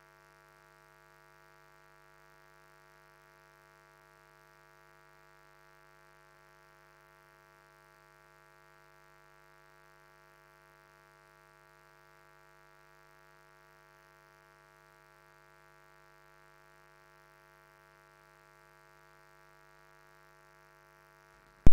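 Near silence with only a faint, steady hum of several even tones.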